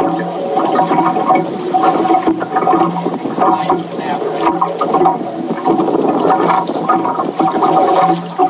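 Water sloshing and gurgling around a small boat's hull, with a steady low hum underneath.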